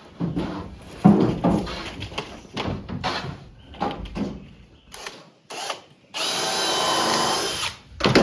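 Knocking and clattering from handling framing material, then a power drill runs steadily with a whine for under two seconds about six seconds in, followed by a sharp knock.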